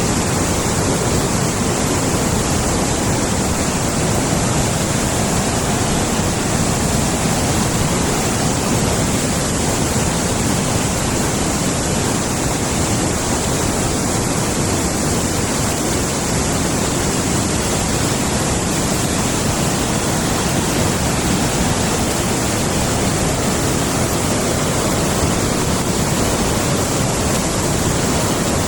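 Large forest stream flowing fast nearby, a loud, steady rush of water that never changes.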